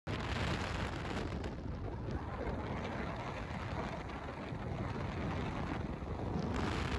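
Steady rushing road and wind noise from a car travelling at highway speed, with a heavy low rumble.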